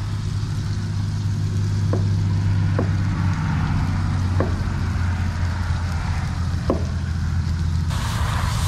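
A steady low engine hum under the hiss of food sizzling in a pan, with a few light clicks of utensils.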